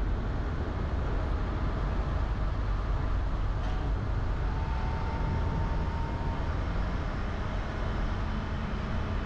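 Car driving on a road: steady low rumble of engine and tyre noise, with a faint tick a little before halfway.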